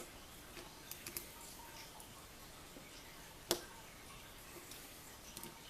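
Faint small metal clicks and taps of a tool working at the lock's rear C-clip, with one sharper click about three and a half seconds in.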